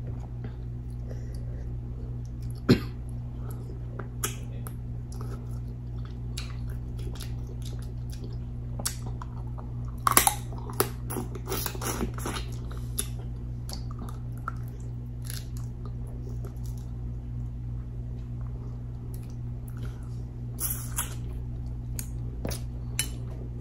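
Close-miked chewing and lip-smacking of saucy seafood, with scattered short wet clicks and smacks, busiest around the middle and near the end, over a steady low hum.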